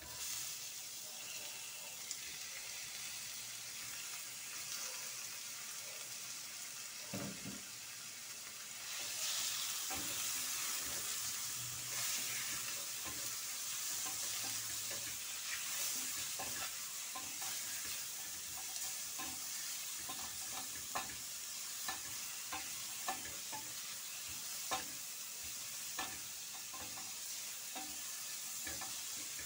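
Peeled shrimp frying in oil in a stainless steel pan, sizzling steadily as a wooden spatula stirs them. The sizzle grows louder about nine seconds in, and the spatula knocks lightly against the pan now and then in the second half.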